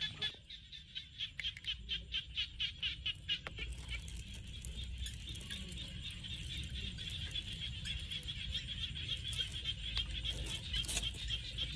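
Frogs calling in chorus: a high-pitched pulsing call, about five pulses a second at first, running together into a steady trill after about four seconds.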